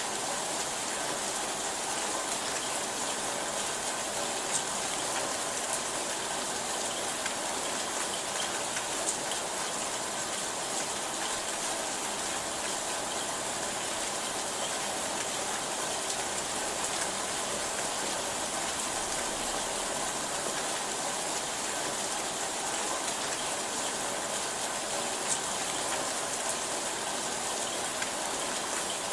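Steady rainfall: an even hiss of rain with a few sharper drop ticks now and then.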